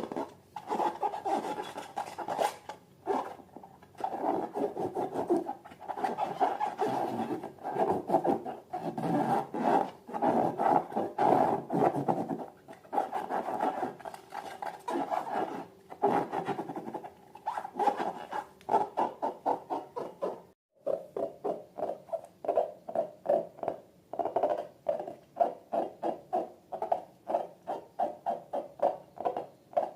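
Sticky slime being squeezed and worked by hand: dense, uneven squishing and crackling. After a brief break about two-thirds of the way through, the squelches come in a quick, even rhythm of about three to four a second.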